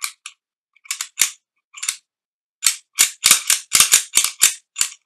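Beretta Px4 Storm pistol's action being worked by hand in a function check after cleaning and lubrication: sharp metallic clicks, a few scattered ones in the first two seconds, then a fast run of about ten over the next two seconds.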